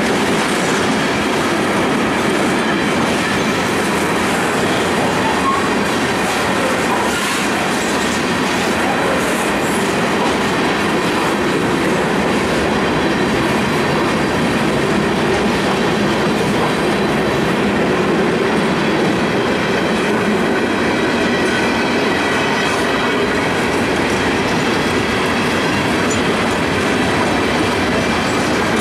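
Freight train's gondola and hopper cars rolling past close by: a steady rumble of steel wheels on the rails with a faint clickety-clack.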